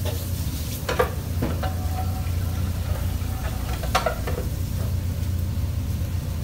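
Steady low hum of a commercial kitchen's background noise, with a few light clinks about a second in and again about four seconds in.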